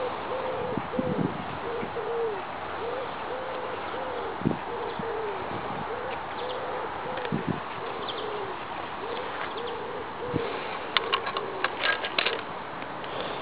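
A dove cooing over and over, each note rising and falling, over a steady background hiss. Near the end come a quick run of sharp clicks as the motorcycle's ignition key is handled and turned.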